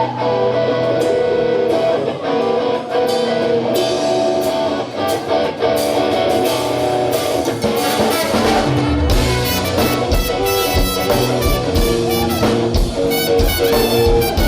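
Funk band music: held guitar and horn-like chords, with the drum kit and bass coming in about nine seconds in.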